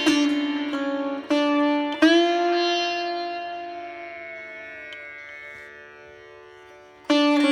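Background music on a plucked string instrument over a steady drone: a few plucked notes, then one long note that bends down in pitch and slowly fades, with fresh plucking near the end.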